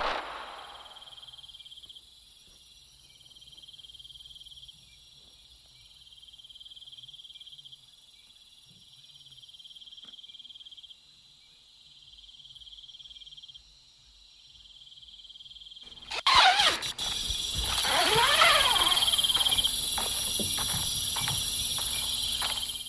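Night ambience of crickets and insects chirping in steady high pulses. About sixteen seconds in, a sudden loud animal roar with pitch glides that rise and fall breaks in, followed by loud continuing noise with a series of sharp strokes.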